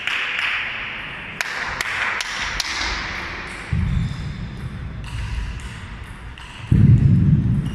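Scattered sharp taps of table tennis balls in a sports hall. About two-thirds of the way in, a low rumble starts, and near the end it turns into a louder low thudding noise.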